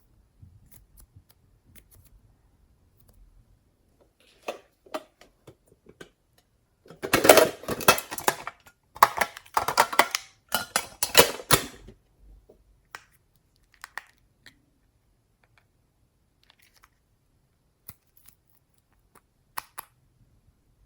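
Slime being pressed and pulled by hand, making sticky crackles and pops. They come thickest in a burst a third of the way in, with scattered single clicks before and after.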